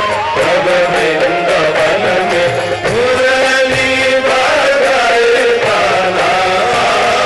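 Hindi devotional bhajan sung live, a voice holding long, bending melodic notes with musical accompaniment.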